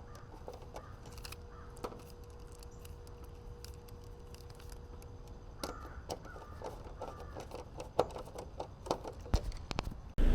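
Scattered small clicks and taps of compressor wires being reconnected by hand, over a low background hum. At the very end a loud machine sound cuts in suddenly.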